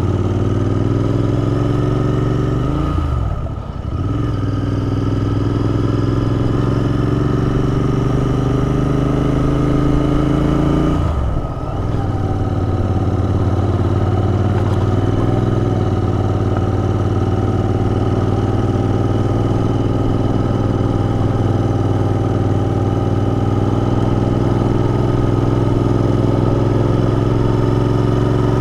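Royal Enfield Interceptor 650's parallel-twin engine under way, heard from the rider's helmet camera, its note climbing slowly as it pulls. The note breaks and dips briefly twice, about three and eleven seconds in, as at gear changes.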